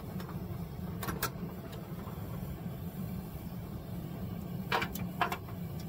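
A few short metallic clinks of a steel wolf trap and its chain being lifted out of a barrel of boiling water, two about a second in and two more near the end, over a steady low rumble.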